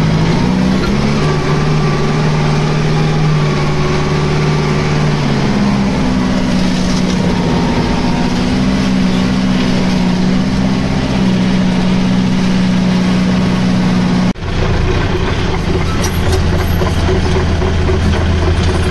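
A farm tractor's diesel engine running under way. The engine note drops slightly about a second in and picks up again around six seconds in. It breaks off abruptly about fourteen seconds in and gives way to a lower, steady engine note.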